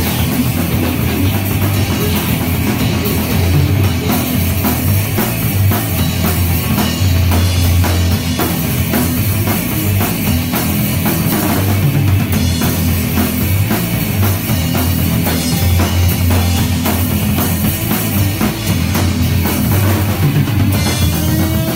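Thrash metal band playing live in a rehearsal room: distorted electric guitars over a drum kit keeping a fast, driving beat.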